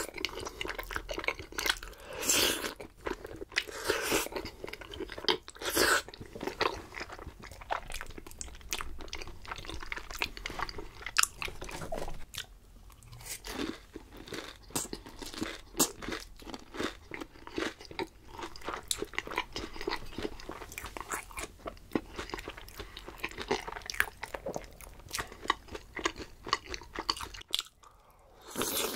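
Close-miked eating: repeated biting and chewing with many sharp crackly clicks, the loudest bites about 2, 4 and 6 seconds in.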